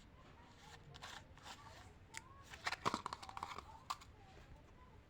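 Plastic candy wrapper crinkling and tearing. A cluster of crackles comes about two and a half seconds in, then one sharper crackle a second later.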